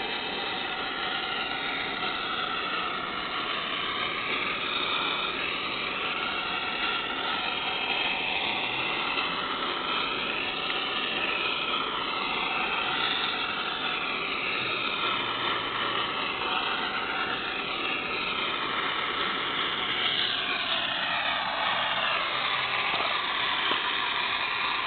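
Gas torch flame running steadily while it is played around the inside of a brake drum, burning off the oil in it.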